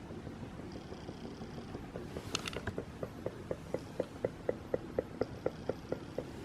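Toyotomi RB-251 kerosene heater ticking. A sharp click a little over two seconds in is followed by a steady, even ticking about four times a second over a low hum.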